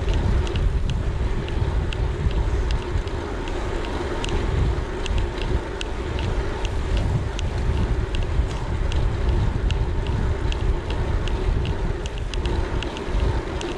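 Wind buffeting the microphone of a handlebar-mounted action camera on a moving gravel bike, with road rumble from the tyres on tarmac. A light, sharp ticking comes through it a few times a second.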